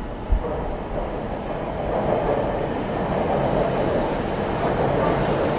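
Electric commuter train running at a station, its rumble building up over the first two seconds and then holding steady. A single sharp knock sounds just after the start.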